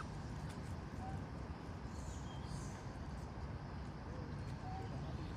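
Outdoor ambience: a steady low rumble with a few faint, short animal calls, one about a second in and another near the end.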